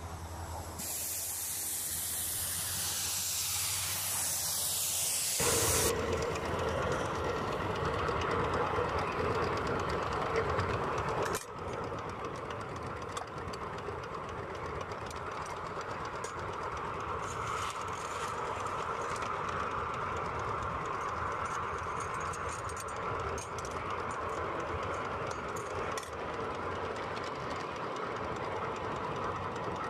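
A 5-inch gauge Bagnall-style live steam locomotive, heard close up from the footplate. A loud steam hiss fills the first five seconds or so, then the engine runs on steadily.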